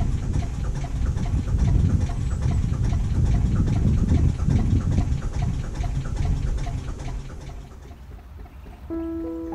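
Narrowboat's diesel engine running under way, a steady low rumble with a regular chugging beat. It fades away near the end as tuned-percussion music comes in.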